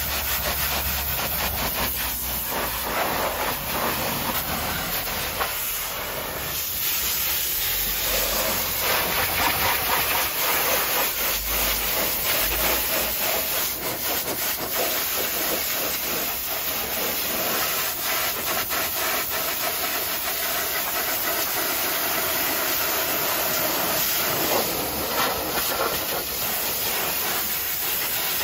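A pressure washer's high-pressure water jet blasting mud off a Jeep's tyre and wheel arch: a steady spray that hardly changes.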